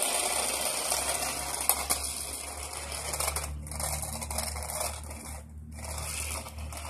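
Electric RC car running on the driveway, its motor and tyres making a steady hiss that cuts out briefly twice when the throttle is let off.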